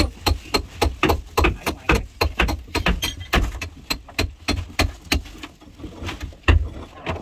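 Rapid, steady hammer blows, about three to four a second, with a short lull and then a harder strike near the end: knocking apart the hold and cabin of a wooden fishing boat.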